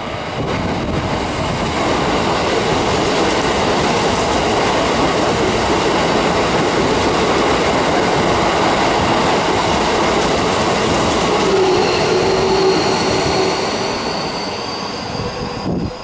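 Keikyu 1000 series express train running through the station without stopping, at reduced speed: a loud, steady rush of wheels and running gear on the rails. Near the end it fades as the train draws away, while a high whine rises.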